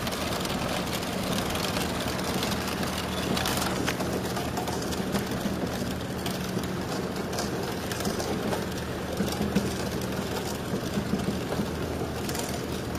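Replica of Cugnot's steam fardier running: a steady mechanical rumble and hiss with a constant low hum, and scattered knocks from its drive and wheels.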